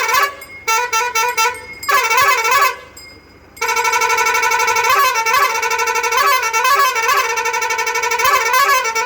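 Bus's musical horn playing a warbling tune: two short blasts in the first few seconds, then a long passage of held notes broken by quick trills.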